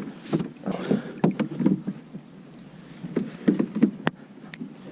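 Irregular knocks and bumps, with a couple of sharp clicks near the end: handling noise while a hooked bass is being played and landed.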